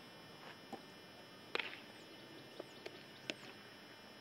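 A few light, sharp knocks and taps from baseball fielding practice, the clearest about one and a half seconds in and another about three seconds in, over a quiet outdoor background with faint bird chirps.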